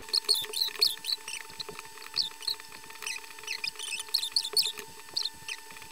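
Quick, irregular clicking of a computer mouse and keyboard while modelling, several clicks a second, over a faint steady electrical hum.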